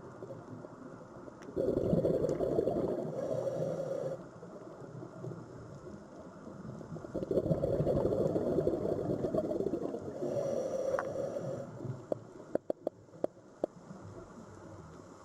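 Sea waves washing in, two surges of rushing water, the first about a second and a half in and the second about halfway through, each lasting a few seconds. Several short sharp clicks follow near the end.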